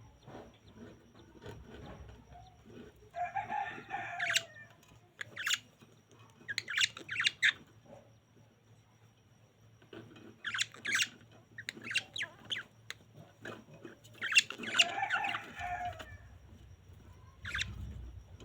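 Budgerigars chirping and squawking in short clusters of rapid chirps, four or five times, with quieter gaps between.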